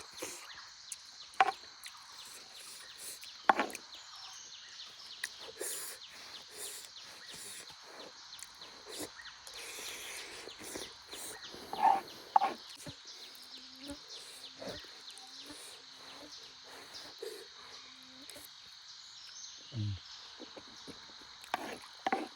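Steady high chirring of insects, with scattered sharp clicks and knocks and a brief run of short low tones midway.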